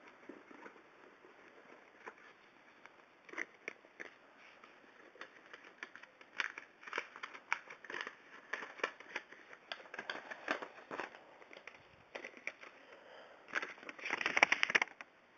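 A mailed package being opened by hand: crinkling and tearing of its packaging in irregular rustles, busiest and loudest near the end.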